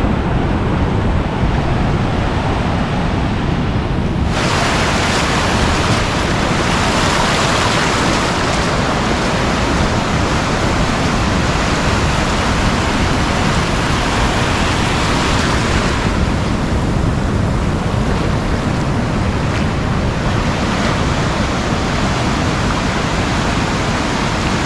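Ocean surf breaking and washing through the shallows in a steady, loud rush. About four seconds in the rush turns brighter and hissier, easing back again about sixteen seconds in.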